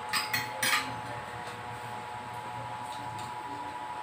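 Spoons and forks clinking against ceramic dinner plates as people eat: a few quick clinks in the first second, then softer scraping, over a steady faint hum.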